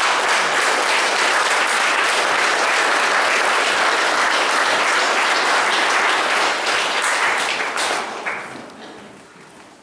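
Audience applauding steadily, dying away over the last two seconds.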